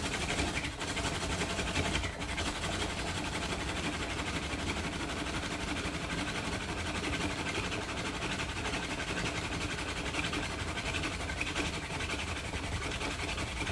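Gas-pedal hand drill fire-by-friction: a wooden spindle spun back and forth between the palms, its tip grinding in a fireboard notch under foot pressure, making a steady friction noise that stops near the end. The drilling is building an ember in the notch.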